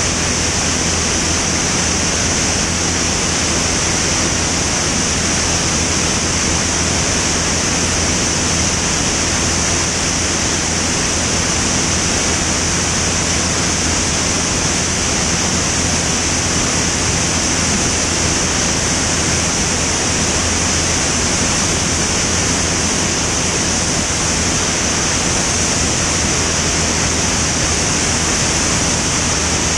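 Steady rushing airflow with the drone of a Van's RV-10's engine and propeller underneath, picked up by a camera mounted outside under the wing, so the wind noise is the loudest part and nothing changes throughout.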